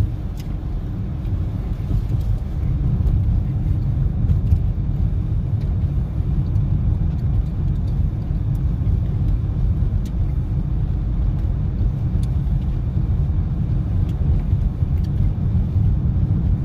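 Steady low rumble of a car's tyres and engine, heard from inside the cabin while driving.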